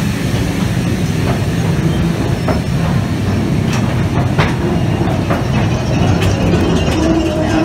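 Calico Mine Train cars rolling on their track: a steady low rumble of wheels, with scattered clicks and clanks about once a second.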